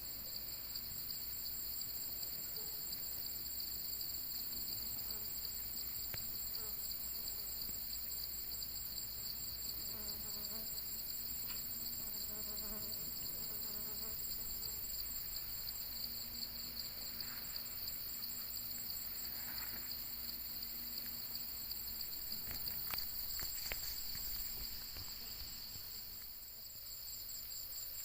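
Insects, crickets among them, trilling steadily in a chorus at two high pitches, the higher one pulsing rapidly.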